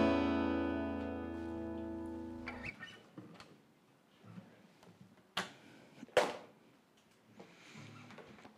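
Last strummed chord of an acoustic guitar ringing and fading, damped suddenly about two and a half seconds in. Then a few sharp knocks and clicks as the guitar is handled and set aside, the two loudest a little under a second apart.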